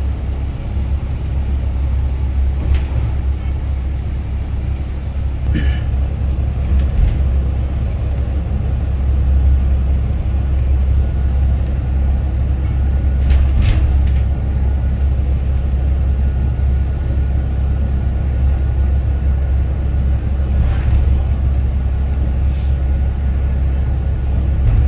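Ride noise inside a vehicle moving along a highway: a steady low rumble of engine and tyres on the road, with a few brief rattles or clicks.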